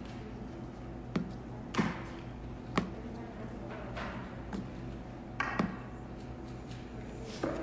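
Library ambience: a steady low hum of the room, broken by about eight irregular knocks and clicks of objects being handled and set down.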